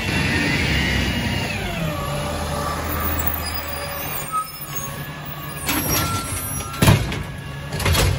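Peterbilt 320 garbage truck's diesel engine running as the truck slows and pulls up, its note falling over the first couple of seconds. This is followed by short air-brake hisses near the end as it stops, the sharpest about seven seconds in.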